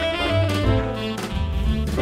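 Instrumental jazz background music.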